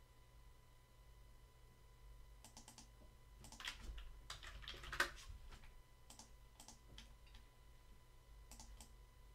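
Faint computer keyboard typing: a quick run of key clicks about two and a half to five seconds in, then a few scattered single clicks, as a CAD command is entered.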